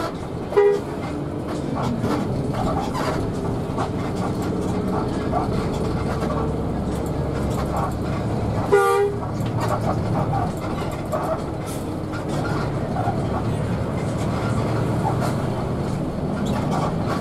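Steady engine and road noise inside the cab of a moving coach bus, with two short horn blasts, one about half a second in and a slightly longer one about nine seconds in.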